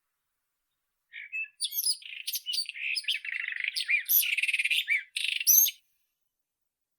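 White-throated robin (Irania gutturalis) singing one phrase of about four and a half seconds: a fast, varied run of clear whistled notes, buzzy trills and quick pitch sweeps that starts about a second in and stops abruptly near the end.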